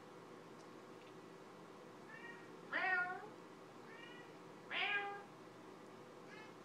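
Meowing in two pairs about two seconds apart: each a short, soft meow followed by a louder, longer one that falls in pitch.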